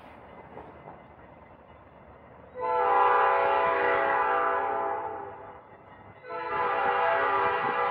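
Diesel locomotive air horn sounding two long blasts of about three seconds each, a chord of several notes, from a train approaching the crossing. The first blast starts about two and a half seconds in, and the second follows after a short gap.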